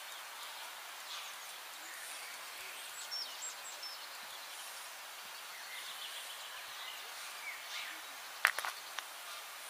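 Steady outdoor background noise with faint, high bird chirps now and then, and one sharp click about eight and a half seconds in.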